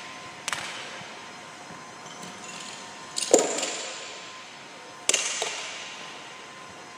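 Metal clanks of barbell plates and a collar being handled on a bar resting on the floor: a sharp clank about half a second in, a louder ringing clang about three seconds in, and two quick clanks around five seconds, each echoing in the gym.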